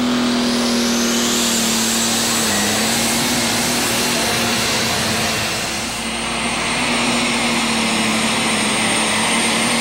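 Allis-Chalmers D21 super stock tractor's turbocharged diesel engine running flat out under load while pulling the sled: a steady deep engine drone under a high turbocharger whine that rises in pitch over the first two seconds and then holds. The sound dips briefly about six seconds in, and a thin high steady whine stays on after that.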